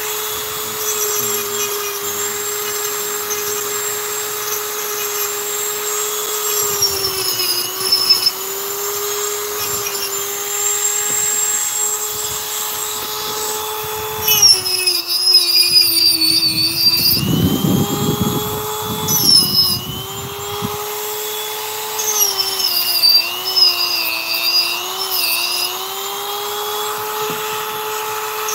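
Dremel rotary tool carving wood: a steady high whine that sags in pitch and recovers again and again as the bit bears into the wood, with a rougher grinding stretch a little past halfway.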